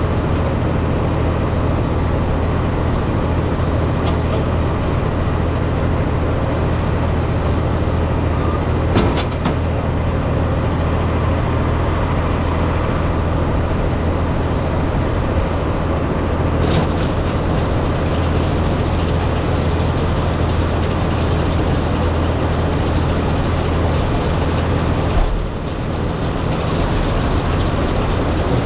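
Large diesel farm machinery engine running steadily, with a brief knock about nine seconds in and a short dip in level near the end.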